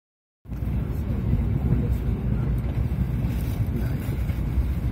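Steady low rumble of a moving train, heard from inside the carriage, starting about half a second in.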